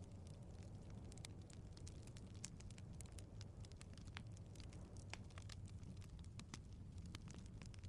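Quiet wood fire crackling, with frequent small irregular pops and snaps over a low steady rumble of the flames.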